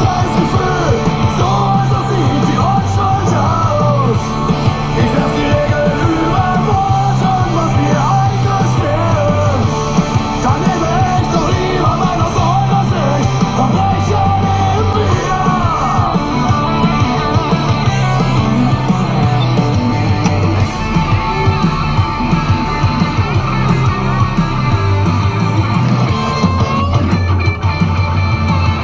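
Loud rock music with electric guitars and a steady beat.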